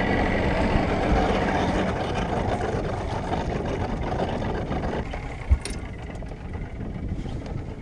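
A fishing boat's outboard motor running under way, with the rush of water. The noise drops about five seconds in, and a single sharp knock follows shortly after.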